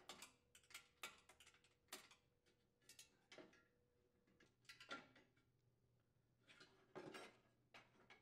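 Faint, scattered clicks and light knocks of a small engine's plastic cover being handled and lifted off, about ten over several seconds.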